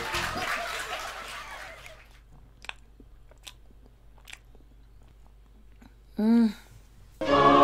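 A person chewing a mouthful of chewy rice cake with red bean filling, a few soft, sparse mouth clicks. There is a fading rush of noise in the first two seconds and a short hummed vocal sound about six seconds in.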